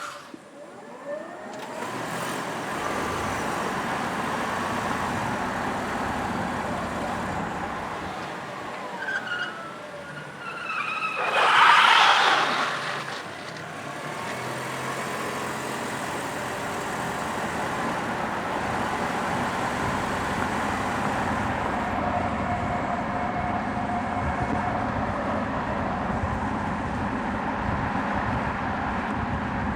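Electric car's tyres skidding on the painted floor of an underground parking garage: a steady rolling hiss with a few short gliding squeals, and one loud screech of about two seconds near the middle.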